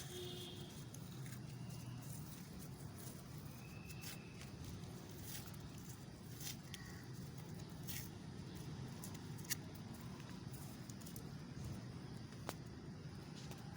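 Low steady outdoor background rumble with a few sharp small clicks and brief faint high chirps.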